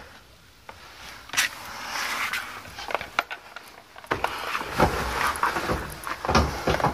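Handling noises: rustling with scattered knocks and clicks as the diagnostic scan tool's cable and connector are handled at the car's dashboard. There is a quiet moment about half a second in, and a busier stretch from about four seconds in.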